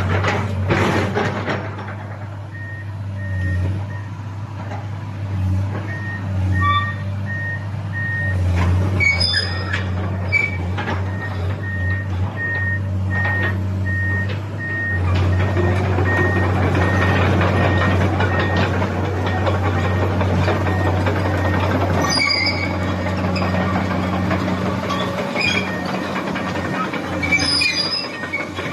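Komatsu PC200-8 excavator's diesel engine running steadily, with its travel alarm beeping regularly, about one and a half beeps a second, through the first half while the machine tracks. From about halfway the engine works harder and the noise grows busier, with a few sharp metallic clanks.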